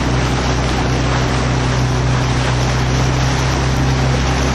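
Motorboat engine running at a steady drone, with wind and rushing water over it.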